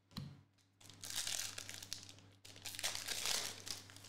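Foil wrapper of a 2021-22 NBA Hoops trading card pack crinkling as it is torn open by hand, in two stretches of rustling that begin about a second in.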